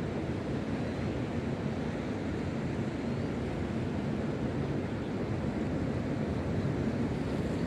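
Ocean surf on a beach with wind buffeting the microphone: a steady, even rushing noise, heaviest in the low end.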